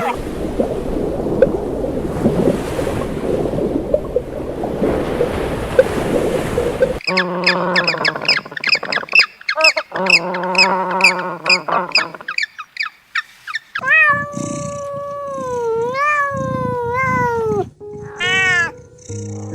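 A rough, crackly noise for several seconds, then cats meowing again and again. Some meows are short and some drawn out, with bending pitch. Music comes in near the end.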